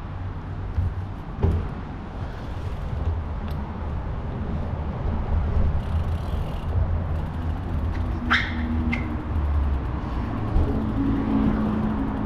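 City street traffic: a steady low rumble of vehicles, with a brief high squeal about eight seconds in and a low engine hum near the end.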